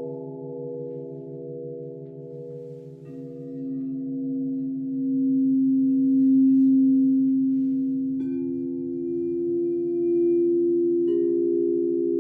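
Crystal singing bowls ringing in sustained, overlapping pure tones, with a slow beating pulse underneath. New bowls sound in about three seconds in, about eight seconds in and again near the end, while one low tone swells louder in the middle.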